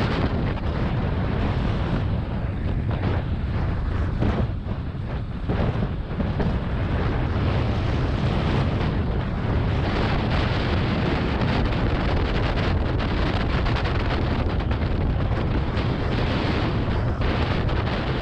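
Wind buffeting a GoPro Hero 7's microphone during a fast sled ride, mixed with the sled's runners scraping over the snow. It is a steady rushing noise that dips briefly about four to six seconds in.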